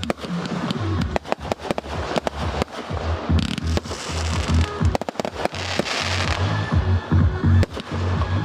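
Fireworks display: rapid, irregular bangs and crackling from shells and cakes going off, with the show's music playing underneath.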